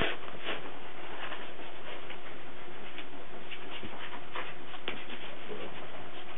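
Cardigan Welsh Corgi puppies moving about: scattered light taps and scuffles over a steady background hiss.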